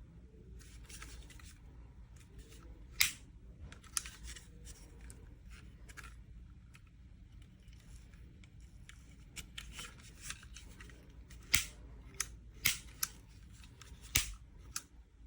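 Scattered sharp clicks and light handling noises over a faint low hum, coming more often in the second half.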